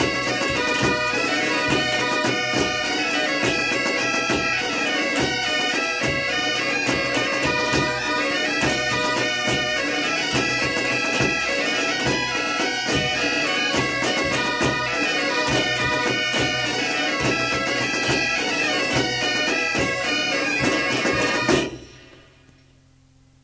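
Galician bagpipes (gaitas) of a pipe band playing a tune over a steady drone. The music stops abruptly near the end, leaving only a faint hum from the cassette recording.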